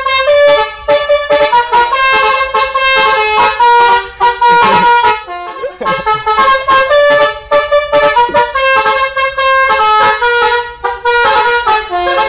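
Telolet basuri bus horn, a multi-tone musical horn, playing a quick tune of changing notes over a low steady hum.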